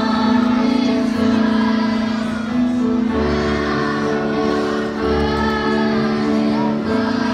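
Music with a group of children singing: held chords over a bass line that changes every second or two.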